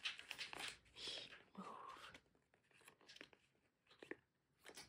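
Faint crinkling of a clear plastic packet holding a paper air freshener as it is handled and turned over, mostly in the first two seconds, then a few soft ticks.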